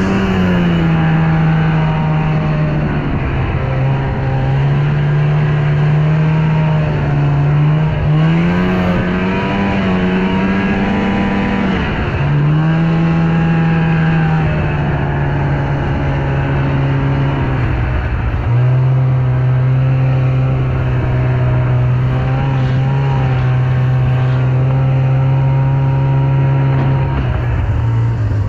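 Snowmobile engine running, its pitch rising and falling as it is revved a few times, most clearly climbing about eight seconds in and dropping back near twelve seconds; it dips briefly past the middle, then holds a steady note.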